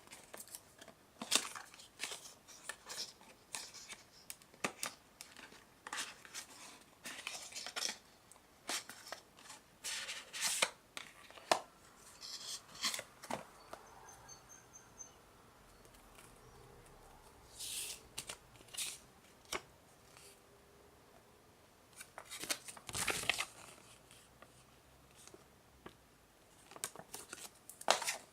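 A small product box and its packaging being opened and handled by hand: irregular clicks, taps and short rustles of cardboard and plastic, with brief pauses between them.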